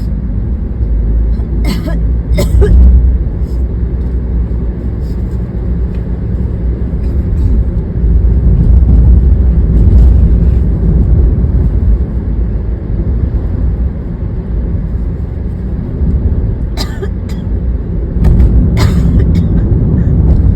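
Steady rumble of car road and engine noise heard inside the cabin while driving. A woman coughs a couple of times about two seconds in and again near the end.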